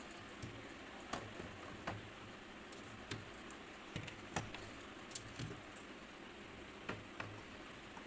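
Scattered light clicks and taps of small plastic drink bottles knocking against each other and the plastic fridge door shelf as they are set in, at irregular intervals over a steady background hiss.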